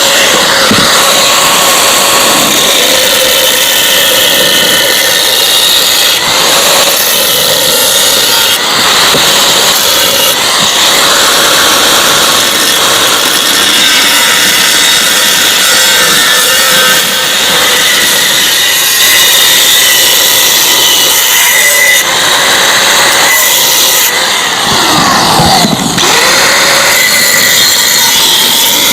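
Angle grinder cutting into the steel shell of a Yamaha RX-King exhaust muffler to split it open. A loud, steady, high cutting noise with a few short breaks; about 25 seconds in the pitch sags and then climbs back.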